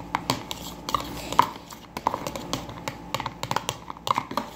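A small spoon knocking and clicking against a bowl while stirring chewed bubble gum, in quick irregular taps, some with a short ring.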